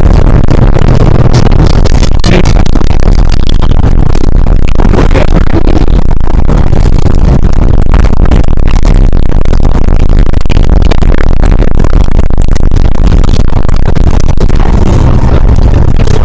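Loud, distorted electronic music, dense and unbroken, with no pauses.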